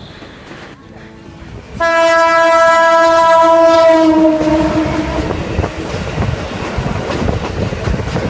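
Train horn sounding one long steady blast of about three seconds, starting abruptly about two seconds in and fading out. The rumble and clatter of the train's wheels on the rails runs on after it.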